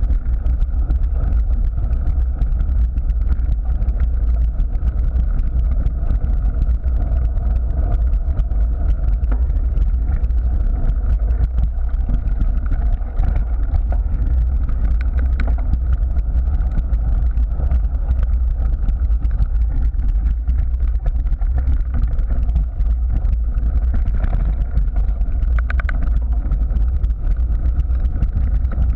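Steady low rumble of wind buffeting a bike-mounted camera's microphone, mixed with mountain bike tyres rolling on a gravel path.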